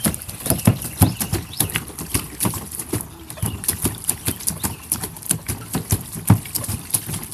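Splashing and slapping in shallow rainwater: quick, irregular splashes several times a second, as someone plays and stomps in the water.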